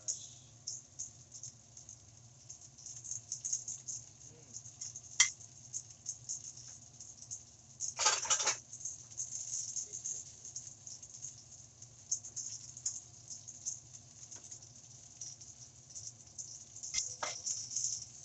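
Chicken thigh frying in a thick one-piece iron frying pan, the fat sizzling with a steady fine crackle. A sharp click comes about five seconds in, and a louder half-second scrape or clatter from the metal spatula about eight seconds in.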